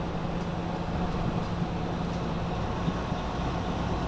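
Cab noise of a Freightliner Cascadia semi truck cruising at highway speed on adaptive cruise control: a steady low engine hum under road and tyre noise.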